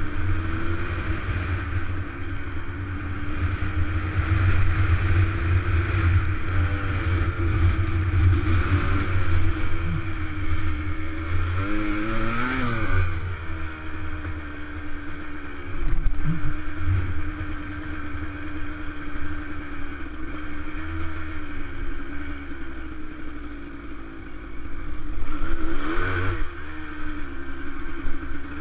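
Dirt bike engine running steadily under way, with heavy wind rumble on the helmet-mounted microphone; the revs climb and drop back briefly about twelve seconds in and again near the end.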